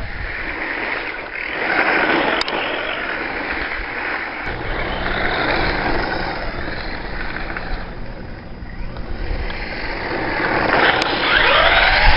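LRP S10 Blast BX RC buggy driving on gravel: its electric motor whines and its tyres spray loose stones, swelling and fading as it runs past, loudest near the end.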